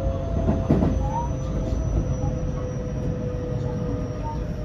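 Running noise inside a JR West 225 series motor car with a Toshiba IGBT VVVF inverter: steady rumble of wheels on rail with the inverter's steady whine over it, and a single knock under the car about two thirds of a second in.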